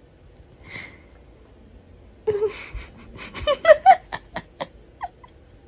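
A woman laughing: a breath about a second in, then a run of short, breathy giggles, about a dozen quick rising bursts in the second half.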